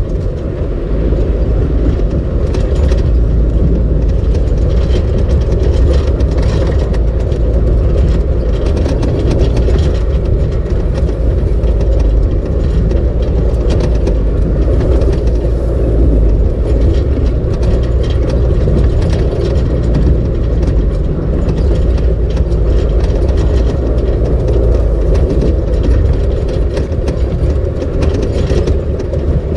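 Off-road vehicle driving over a gravel dirt trail, heard from inside the cab: a steady low rumble of engine and tyres on the rough surface, with constant small clicks and rattles from gravel and the body.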